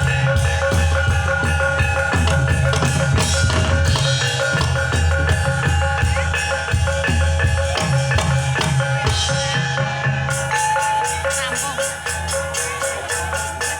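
Gamelan ensemble playing jatilan dance accompaniment: drums keeping a dense steady beat under ringing metallophone tones. About ten seconds in, a rapid high ticking percussion pattern joins in.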